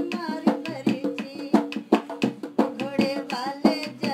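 Rajasthani folk music accompanying a katputli puppet dance: a dholak played in a quick, steady beat with a voice singing along.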